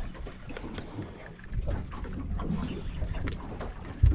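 Wind buffeting the microphone over a steady low rumble, with water lapping against a small boat's hull on open sea.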